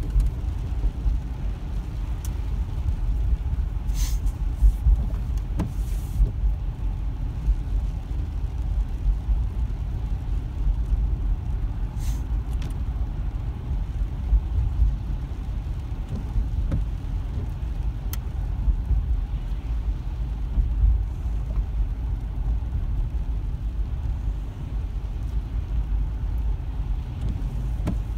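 Car cabin noise while driving on a wet road in heavy rain: a steady low rumble of the car's engine and tyres, with a few faint clicks now and then.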